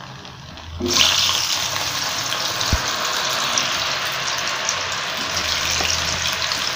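Flour-coated potato strips deep-frying in hot oil in a karahi: a dense, steady sizzle that starts suddenly about a second in.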